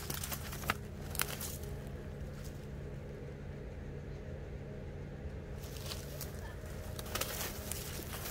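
Footsteps on dry ground: a couple of crunching steps about half a second to a second in, then a quiet stretch, then more steps in the second half. A steady low hum runs underneath.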